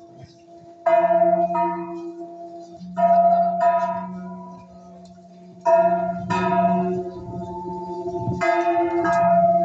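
A bell struck twice in quick succession about every two and a half seconds, four pairs in all. Each strike rings out and dies away. It is heard through the speakers of a monitor playing festival footage.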